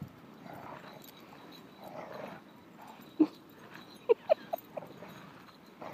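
A dog yipping and whining in short, sharp cries: one about three seconds in, then three more in quick succession, agitated at the person flailing in the snow. Softer swishes of arms and legs sweeping through snow come before them.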